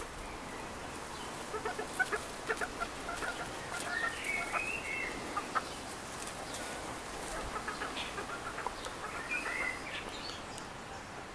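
Hen giving quacky clucks in two flurries of short calls a few seconds apart: the protest of a hen carrying a worm while another hen chases her for it.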